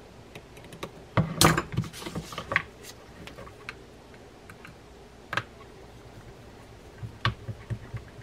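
Hand tools clicking and tapping against a Penn Slammer III 4500 spinning reel while a small screw is set and tightened with a screwdriver: a quick cluster of clicks about a second in, then a few single sharp clicks spread apart.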